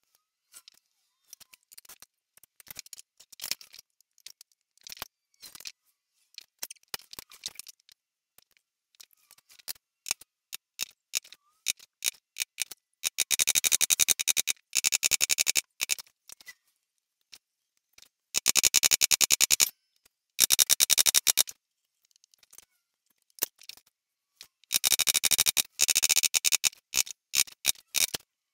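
Wooden mallet striking a chisel to chop a hinge recess into an ash lid, in four runs of rapid sharp taps, the longest about three seconds, with scattered small clicks of tools being handled before and between them.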